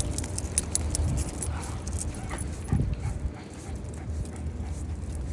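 A dog whimpering in short yips over a low rumble of wind or handling noise, with light clicking through the first two seconds.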